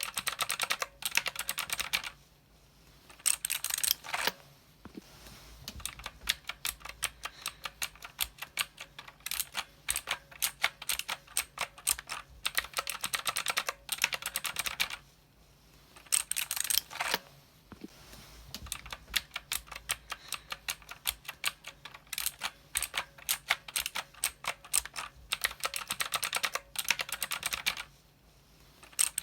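Mechanical keyboard being typed on: rapid clacking keystrokes in continuous runs, broken by a few brief pauses.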